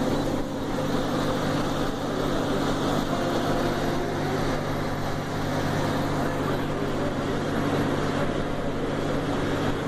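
Steady engine hum and road noise heard inside the cabin of a moving bus.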